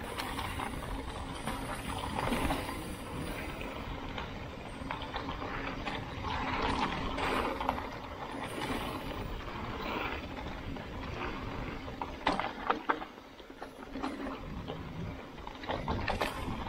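Mountain bike running down a rough trail: tyres rolling over dirt and rock, with the bike's chain and frame rattling and knocking, and wind rumbling on the microphone. A few sharp knocks come about twelve seconds in.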